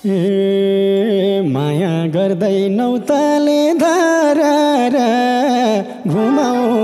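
A man singing a Nepali dohori verse into a microphone, unaccompanied, his melody bending and sliding through ornamented phrases. He breaks off briefly about three seconds in and again about six seconds in.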